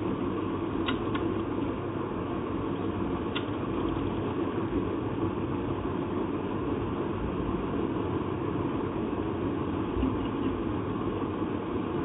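A steady mechanical hum, with a few light clicks from hand tools working on a typewriter's mechanism in the first few seconds.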